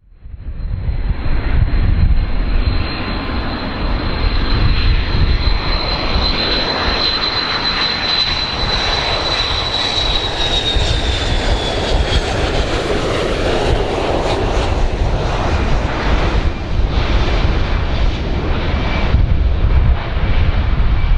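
Fixed-wing aircraft engines running loud: a heavy rumble with a high, steady whine on top that sags slightly in pitch about ten seconds in. The sound cuts in abruptly at the start.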